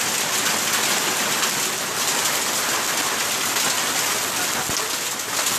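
Heavy hailstorm: hailstones pelting the ground and surfaces in a dense, steady clatter.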